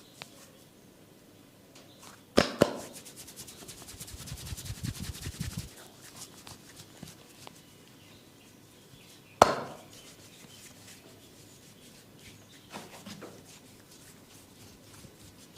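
Barber's hand massage on head and neck: two sharp smacks in quick succession, then a few seconds of rapid, even chopping or tapping strokes, then a single sharp smack, loud as the first two.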